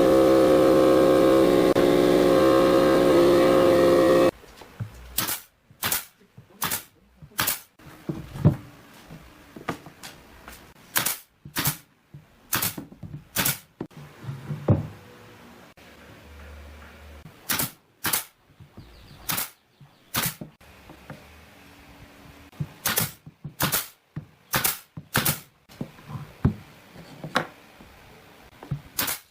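A loud steady machine-like drone with a fixed pitch for about the first four seconds, which cuts off suddenly. Then come sharp, hard knocks at irregular intervals, often in quick pairs, like tools striking wood.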